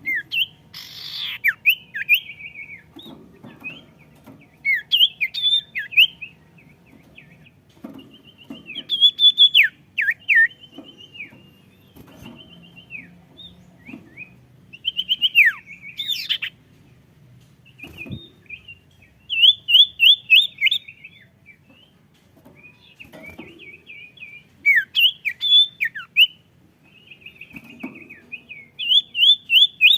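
A songbird, a sirtu, singing in short loud phrases every few seconds. Each phrase is a quick run of chirps and rattling trills with sharp down-slurred notes.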